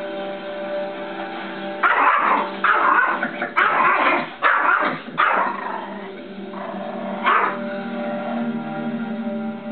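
Yorkshire terrier barking at the television: a quick run of about five sharp barks, then one more a couple of seconds later, over the TV's soundtrack music.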